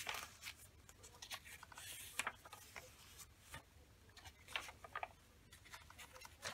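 Pages of a handmade junk journal being turned and pressed flat by hand: a few short paper rustles and soft taps.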